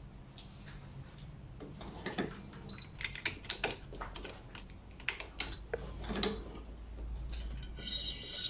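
A badminton racket being strung with BG66 Ultimax string on a stringing machine: scattered sharp clicks and clinks from the clamps and tools, and string rubbing as it is drawn through the frame. A low hum joins in during the second half.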